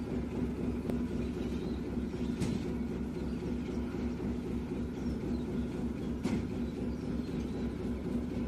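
Truck diesel engine idling steadily, a low even hum with a couple of faint short clicks about two and a half and six seconds in.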